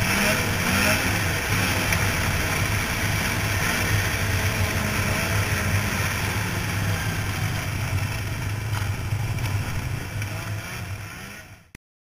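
Two-stroke engine of a 2000 Ski-Doo Formula 500 snowmobile running at a steady cruise, with wind rushing past the helmet-mounted microphone. The sound fades near the end and then cuts off suddenly.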